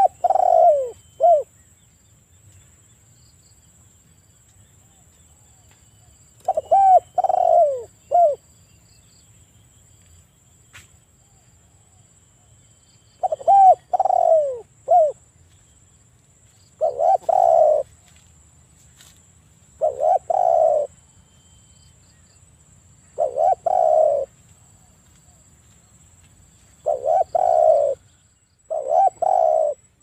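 Spotted dove cooing: about eight short phrases of low coos, each about a second long, repeated every two to six seconds.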